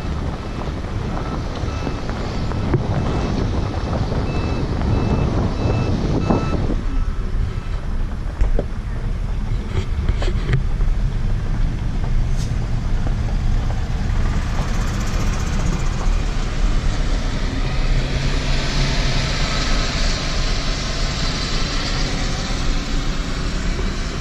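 A motor vehicle's engine running steadily with wind noise on the microphone. For the first six seconds or so, a repeated high electronic beep sounds at an even rhythm, then stops.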